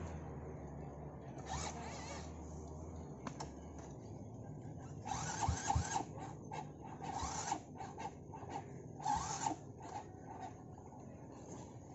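Dirt bike being kick-started: a few short mechanical clatters about five, seven and nine seconds in, without the engine catching.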